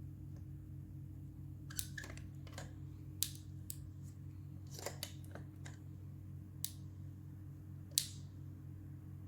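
Scattered small clicks and snaps, about nine at uneven intervals with the loudest about eight seconds in, from handling a die-cast toy car and its packaging, over a steady low hum.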